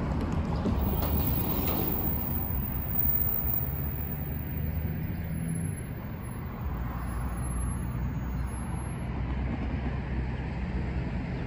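Steady low rumble of motor-vehicle engines and road traffic. An engine drone shifts in pitch about halfway through.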